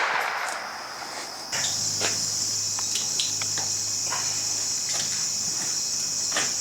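Steady high-pitched insect chorus, set in about a second and a half in, after the echo of a .30-06 rifle shot dies away at the start.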